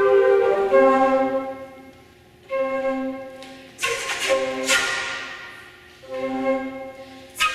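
Flute choir playing held chords that swell and fade between phrases. Sharp, accented attacks come about four seconds in and again near the end.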